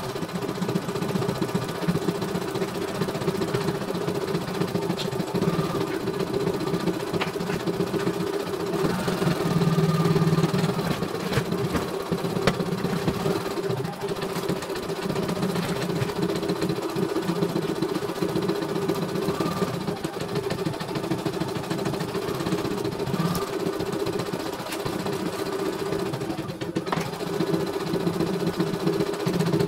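CNY E900 computerized embroidery machine stitching, its needle running at a steady rapid pace while the embroidery unit moves the hoop.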